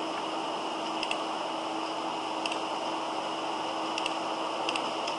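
Steady hiss with a faint hum from the recording microphone, with a few short computer mouse clicks, some in quick pairs.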